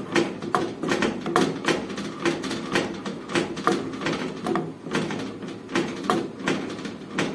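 Silicone spatula stirring thick white sauce in an aluminium pot, scraping and knocking against the pot's sides and bottom in quick, irregular strokes.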